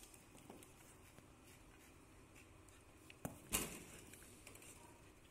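Corgi puppy's claws clicking faintly on a tiled floor as it trots up carrying a rubber toy, with a short sharp knock about three and a half seconds in.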